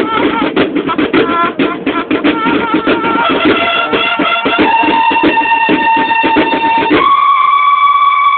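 Banda de guerra, a Mexican drum and bugle corps, playing: rapid snare-drum strokes under bugle calls, then about seven seconds in the drums stop and the bugles hold one long note.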